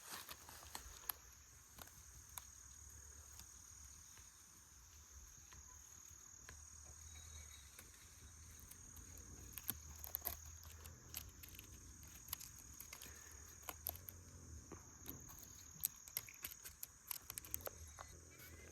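Faint, steady, high-pitched insect chirring, with scattered sharp clicks and crackles that come more often in the second half.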